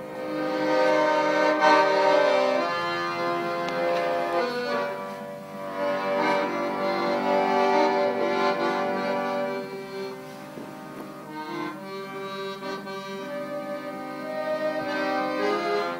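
Instrumental music of sustained chords that change every few seconds, louder at first and softer from about ten seconds in.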